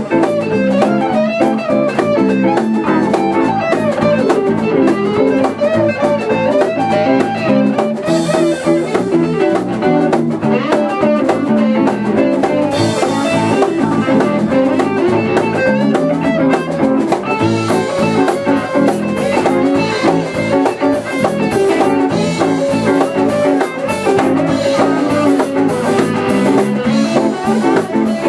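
Live blues-rock band playing an instrumental passage: electric guitars, bass guitar and drum kit with cymbals.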